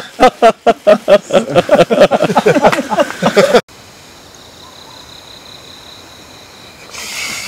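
Loud, choppy laughter from a man for about three and a half seconds, cut off abruptly. After it, a quiet steady high insect buzz of a night outdoors, with a short hissing swell near the end.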